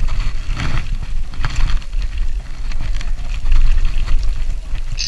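Wind buffeting the microphone of a handlebar camera on a moving Brompton folding bicycle, a heavy low rumble, with the hiss of its tyres on wet tarmac.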